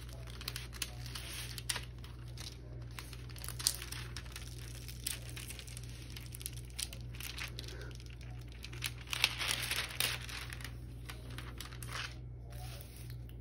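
Clear plastic cover film on a diamond painting canvas crinkling and crackling under the hands as it is smoothed and handled. A denser run of crackles comes about nine seconds in.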